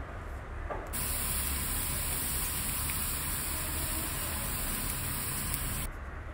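Grated carrots sizzling as they fry in hot ghee in a frying pan: a loud even hiss that starts about a second in and cuts off suddenly near the end, over a steady low hum.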